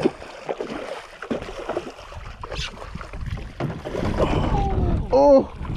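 Wind buffeting the microphone over water around a small boat, with scattered clicks and knocks from a spinning reel and rod being worked while a fish is fought. A brief vocal cry about five seconds in.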